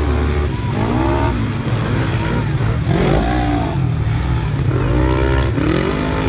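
Several side-by-side UTV engines racing on a dirt flat track, a continuous low rumble with engine pitch rising and falling repeatedly as the machines rev up and back off.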